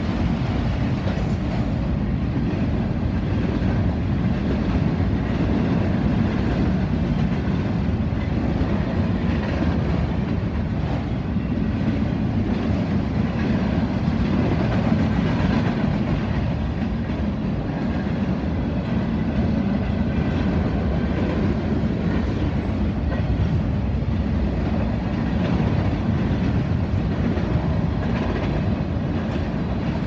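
Freight cars of a manifest train rolling past, steel wheels on the rails making a steady rumble that holds evenly throughout.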